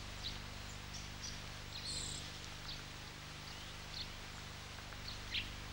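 Faint, short, high chirps of small birds, about ten scattered calls including one brief higher whistle about two seconds in, over a low steady hum.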